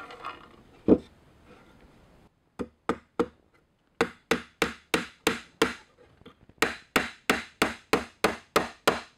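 Claw hammer driving nails through a cedar fence-picket roof into the front of a birdhouse. A single knock about a second in, then three light taps to start the nail, then two runs of sharp, ringing strikes at about three a second with a short pause between.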